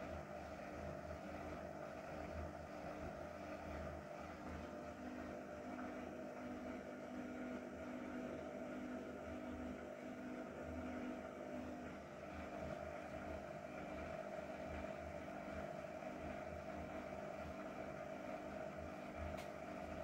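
Hotpoint Ariston Aqualtis AQ83D 29 front-loading washing machine on its spin cycle, set to 800 rpm. It gives a steady motor whine over a low, pulsing rumble from the spinning drum.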